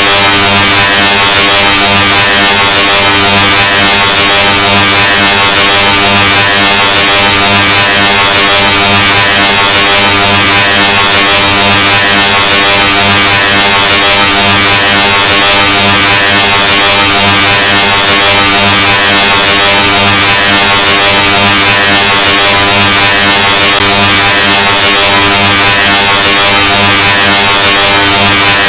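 Deliberately overloaded 'Loudness 2.0' sound effect: a steady, heavily distorted low buzzing drone with harsh hiss over it, held unchanged at near full level.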